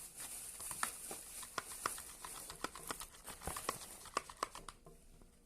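Glue-and-cornstarch slime being mixed, with many irregular sticky clicks and crackles over a faint hiss. The clicking stops near the end.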